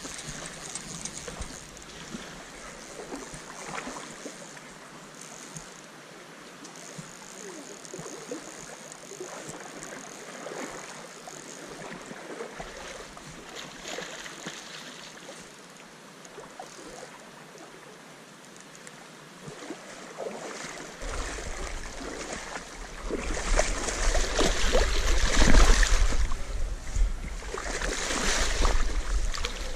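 Shallow river water running and splashing around a wading angler, with scattered splashes from a hooked steelhead thrashing at the surface. The sloshing grows much louder in the last third as the fish is brought into a landing net.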